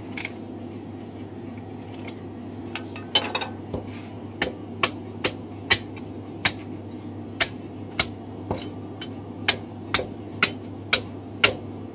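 Meat cleaver striking a lamb rib rack held upright, cutting the ribs along the bone. The sharp chops start about three seconds in and then come about twice a second.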